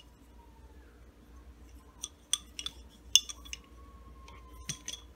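Wooden lace bobbins clicking against one another as they are handled and crossed: a scattering of light, sharp clicks, the loudest a little past the middle.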